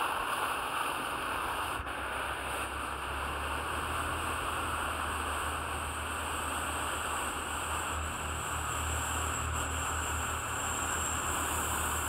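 Dunhinda waterfall rushing: a steady, even roar of falling water with a low rumble beneath it.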